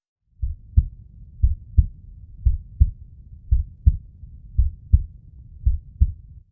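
Heartbeat sound effect: deep double thumps, six beats about a second apart, over a faint low rumble.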